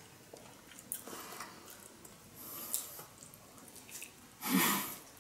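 Close-up eating sounds: small clicks and soft rustles of sushi handled over a glass bowl of soy sauce, then a big bite into the salmon nigiri with a short breathy sound through the nose about four and a half seconds in.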